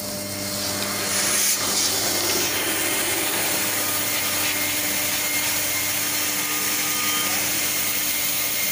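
Transformer fire protection water spray (deluge) system spraying the transformer during a test: a steady hiss of water jets that swells about a second in and holds. A steady low hum sits beneath it.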